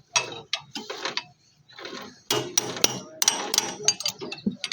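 Irregular metallic clicks and clanks of hand tools being worked on a motorcycle engine, with a short pause and then a quick run of louder clanks near the middle.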